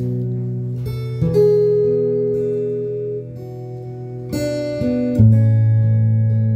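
Recorded music playing back from a MiniDisc deck through hi-fi speakers: an acoustic guitar intro, plucked notes left to ring, with new notes struck about a second in and again around four and five seconds.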